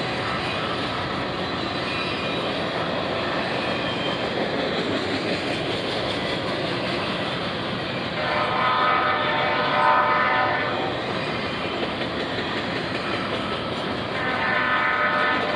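Union Pacific intermodal freight train running by with a steady rumble of locomotive and wheels. The locomotive's air horn sounds twice: a blast of about two and a half seconds about eight seconds in, and another starting near the end.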